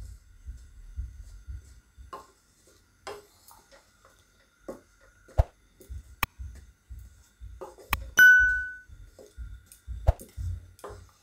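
A metal spoon stirring dry rice flour in a nonstick kadai as it roasts: soft scrapes and light taps against the pan. About eight seconds in there is a sharp click followed by a short ringing ping.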